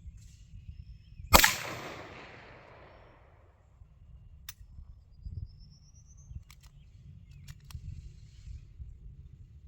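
A single gunshot, loud and sharp, about a second in, its echo fading over roughly two seconds. A few faint clicks follow.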